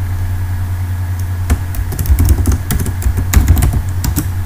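Computer keyboard keys clicking as a password is typed: scattered keystrokes starting about a second and a half in, over a steady low hum.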